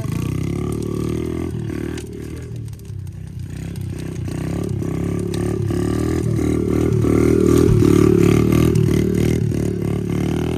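A motor vehicle's engine running with a rattle, growing louder to a peak about eight seconds in, then easing off.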